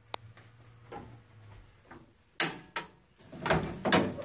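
Handling sounds of a flat sheet-metal heat shield held against a wall while a screw is set into one of its pre-drilled holes: a sharp click just after the start, two sharp clacks about two and a half seconds in, then a burst of scraping and rattling.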